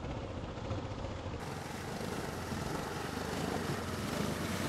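Adventure motorcycle wading through a river crossing: engine running steadily under load, with water splashing and rushing against the bike. The sound turns brighter about a second and a half in.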